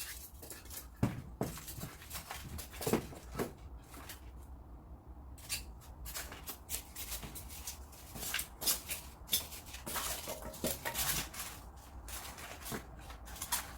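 Hands moving and fitting wooden tree roots together, with irregular knocks, clicks and rustling that grow busier in the second half.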